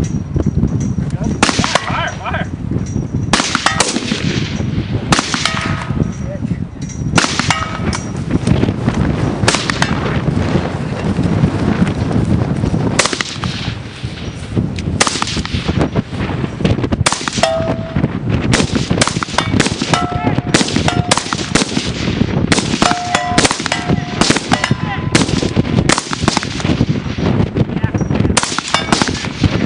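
A string of rifle shots fired at an irregular pace, often one every second or so. Several are followed by a short ringing ding, typical of hits on steel targets.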